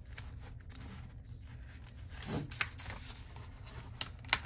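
Cardboard mailer and backing boards rustling and scraping as a comic is worked out of the package by hand, with a few light taps and clicks near the end.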